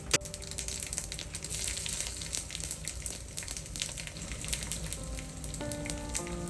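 Food frying in a pan, sizzling and crackling densely, after a single sharp click right at the start. Soft background music with held notes comes in near the end.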